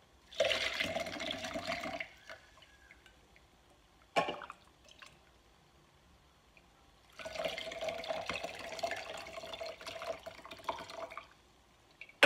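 Basil sherbet poured from a metal scoop through a plastic sieve into a glass jug: a short pour about half a second in and a longer pour of about four seconds starting around seven seconds, the liquid splashing and ringing into the jug. A single sharp knock comes between the two pours.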